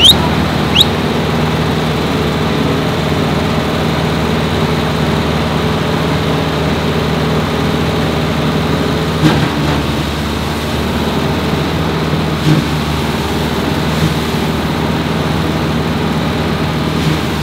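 Engine-driven straw blower running steadily under load, a low engine drone under the rushing of its fan as straw bales are fed into it. A few short knocks stand out over the drone in the second half.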